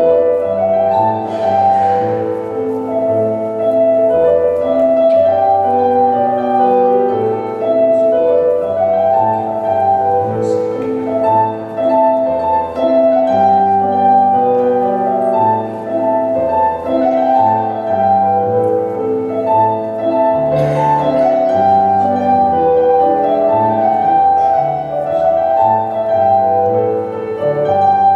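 Scottish country dance music for a strathspey, instruments playing a melody over a held accompaniment at a steady level.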